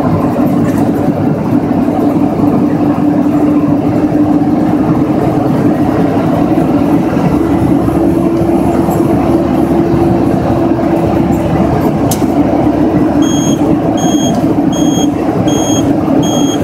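Mack truck's diesel engine running loud, heard inside the cab while driving: a steady drone whose pitch rises a little about halfway and settles back. Near the end a repeating electronic beep starts, about one and a half beeps a second.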